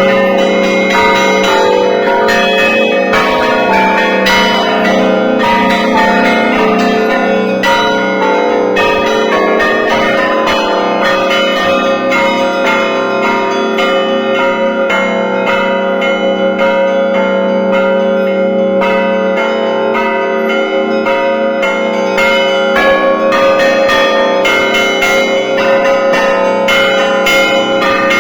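Russian Orthodox church bells rung by hand from the belfry. Many bells are struck continuously in a dense festive peal: quick, rhythmic patterns on the small bells over the steady ringing of the larger ones.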